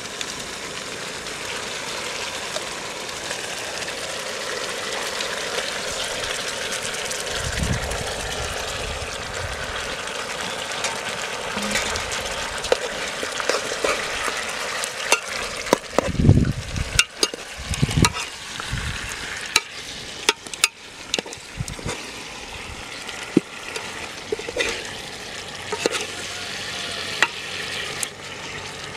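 Pigeon pieces sizzling in curry gravy in a cooking pot while a ladle stirs them, with a steady sizzle and, from about halfway through, frequent clicks and knocks of the ladle against the pot. A few dull thumps come in the middle.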